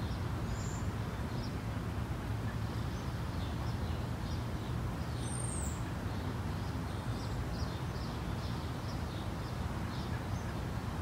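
Outdoor ambience: a steady low background hum with small birds chirping repeatedly, and now and then a higher arched call.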